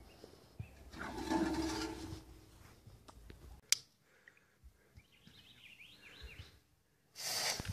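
A bowling ball sliding down into the steel barrel of a homemade black-powder howitzer with a scraping rumble about a second in. After a click, birds chirp faintly while a lighter flame is held to the fuse, and a loud burst of hissing starts near the end as the fuse catches.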